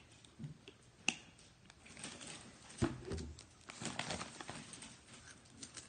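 Close rustling and small clicks from a child's snack and sleeve being handled right by the microphone, with a dull bump about three seconds in.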